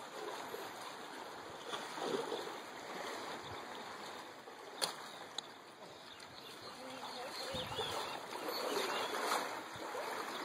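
Sea water sloshing and lapping among the rocks of a shallow cove, swelling and ebbing with the waves. A single sharp click about five seconds in.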